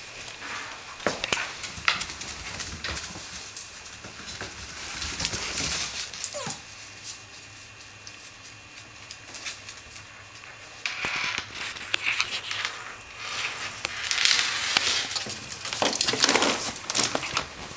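A corgi puppy and a larger dog playing on a tile floor: irregular scuffling and scrabbling, with a short, falling whimper about six seconds in.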